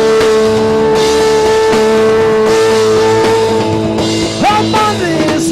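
Rock band playing, with electric guitar, bass and drums. One long held note carries most of the stretch, then gives way to sliding, bent notes near the end.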